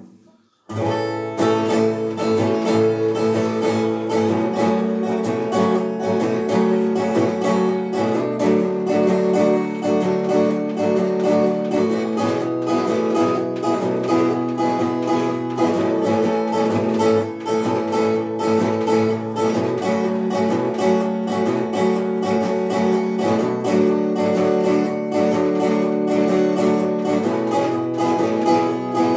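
Acoustic resonator guitar strummed in a steady, even rhythm, beginning under a second in after a brief knock.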